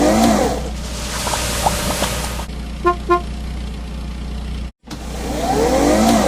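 Animated vehicle sound effects: a steady low engine hum with a swooping rise-and-fall pitch sweep at the start and again near the end, and a short double horn toot about three seconds in.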